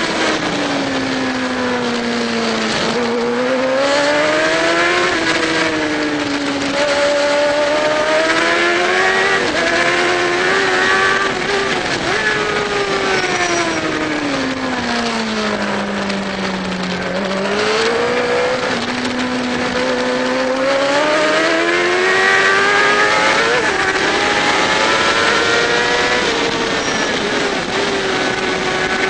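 Onboard sound of a Triumph racing motorcycle's engine at race pace, its pitch rising under acceleration and falling as it slows for corners, with one long slowdown about midway before it climbs again.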